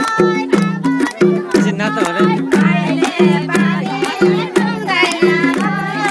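Nepali folk song with singing over a steady, quick beat, and people clapping along in time.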